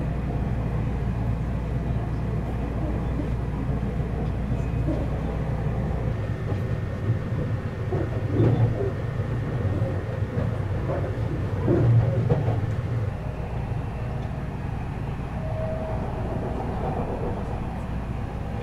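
Seibu Laview limited express train running, heard from inside the passenger cabin: a steady low rumble of the moving train, swelling louder twice, about eight and twelve seconds in.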